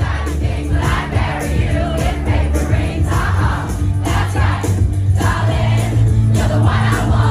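Pop music played loud through a club sound system, with a steady heavy bass beat, and a crowd singing along.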